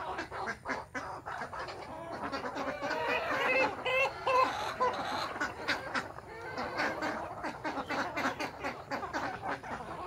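A mixed flock of desi chickens and ducks calling together: hens clucking and ducks quacking in a dense, overlapping chatter. It grows loudest about halfway through.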